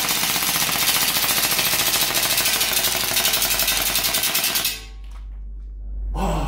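AW Custom FN M4A1 gas blowback airsoft rifle firing one long full-auto burst from a drum magazine, its bolt cycling in a rapid, even rattle of shots, which cuts off abruptly about four and a half seconds in.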